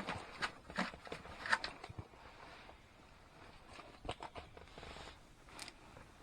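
Scattered light knocks, taps and clothing rustle from people moving about and handling a fish. They come thickest in the first two seconds and again about four seconds in.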